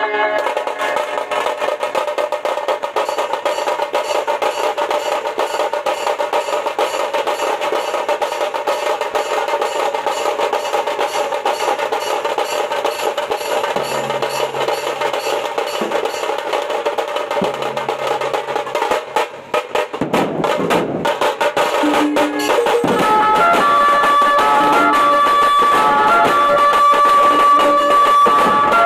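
Dhumal band drumming: several large stick-beaten drums playing a fast, dense rhythm. About twenty seconds in the drumming breaks off briefly, then comes back louder with a melody played over it.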